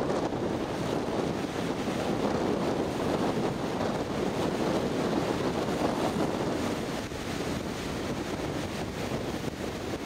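Strong storm wind buffeting the microphone over rough, storm-driven waves washing and breaking against the shoreline: a steady rushing noise.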